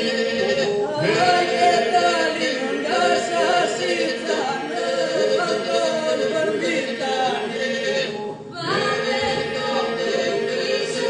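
Southern Albanian polyphonic folk singing: a group of men and a woman singing a cappella, the melody moving above a steady held drone. The voices break off briefly about eight seconds in, then come back in.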